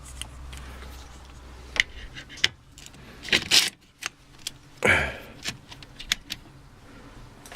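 Scattered sharp clicks and short rattles of a plug, plug-in circuit breaker and switch being handled while the drill's power is being connected.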